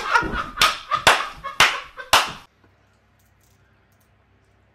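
A man laughing hard and striking his hands in about five sharp smacks, roughly two a second. The sound cuts off to silence about two and a half seconds in.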